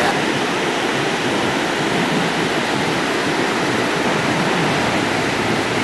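Ocean surf breaking and washing toward the shore, a steady rushing noise.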